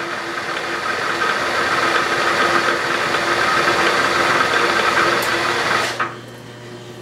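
Bridgeport milling machine spindle running while a 90-degree spot drill cuts a chamfered spot into a metal block, the quill brought down to its depth stop. The steady cutting noise stops abruptly about six seconds in, leaving a lower hum.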